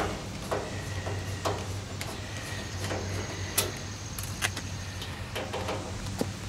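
Screwdriver working the screws out of a stainless-steel grill front panel: light metal clicks and scrapes, roughly one a second, over a steady low hum.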